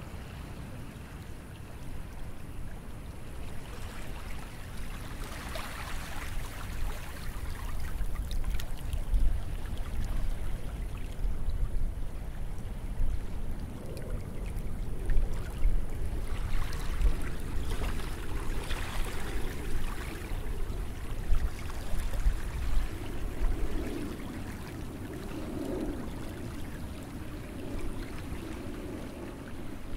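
Calm sea waves washing onto a beach, swelling and receding, with a steady low rumble underneath. The wash builds about five seconds in and again in the middle stretch.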